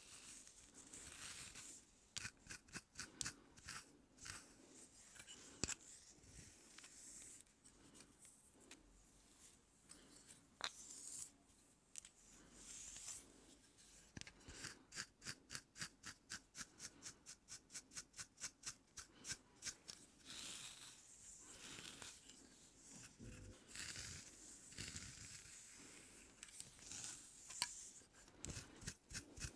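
Wooden comb drawn through hair and fingernails picking at the scalp close to the microphone: soft swishing strokes and sharp clicks, with a run of quick, even clicks, about three or four a second, in the middle.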